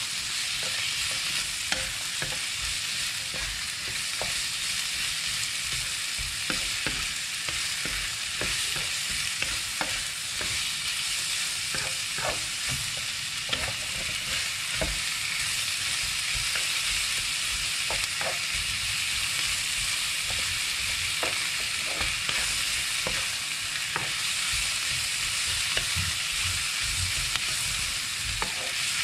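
Sliced sausage stir-frying in hot oil in a pan, a steady sizzle with irregular clicks and scrapes of the spatula against the pan.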